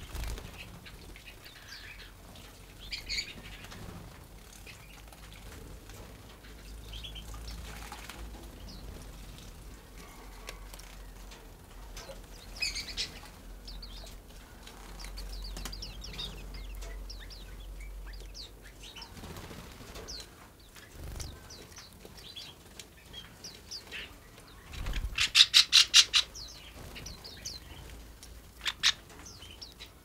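Small songbirds give short, high chirps throughout. Near the end comes a loud, rapid flutter of about eight beats in a second, a bird's wings as it flies in to the feeder, and a single sharp click follows shortly after.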